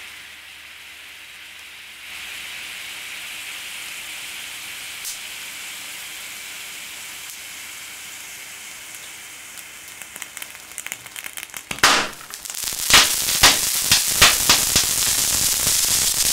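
Liquid ozonated oxygen with liquid nitrogen boiling off with a steady hiss in a glass petri dish holding solid acetylene. About ten seconds in, crackling starts, then a sharp crack and a rapid string of loud cracks and pops as the acetylene explodes in the liquid ozone and the petri dish shatters.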